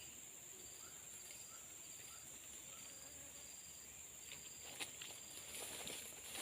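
Insects droning steadily at a high pitch, with a short high chirp repeating about twice a second. A few clicks and rustles come near the end.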